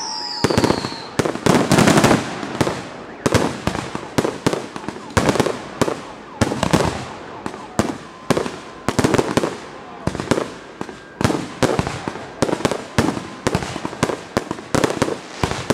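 Fireworks display going off: a steady barrage of sharp bangs, about two a second, with a short falling whistle at the start.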